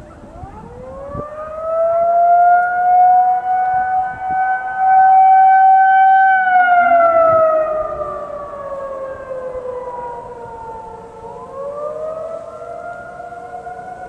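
Outdoor tornado warning sirens sounding a wail for a monthly system test. The nearest siren winds up in pitch over about two seconds, holds a steady tone at its loudest, then winds down from about six seconds in and starts rising again near the end, while other sirens wail more faintly at different pitches.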